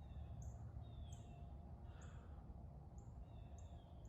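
Wild birds chirping in the background, short high chirps repeating about every half second with a few lower falling notes, over a faint low outdoor rumble.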